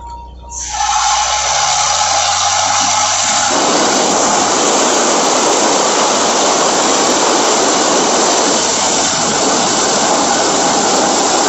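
High-pressure borewell drilling rig running: a loud, steady rushing noise starts about half a second in and fills out lower within a few seconds.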